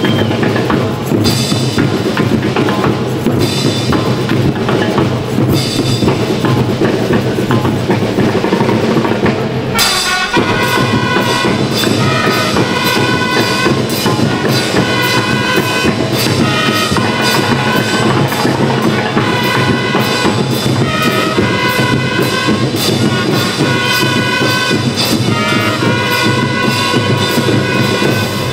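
School rhythm band (banda rítmica) playing: snare and bass drums beating a march rhythm with a few bright crashes. About ten seconds in, marching bell lyres join with a ringing melody over the drumming.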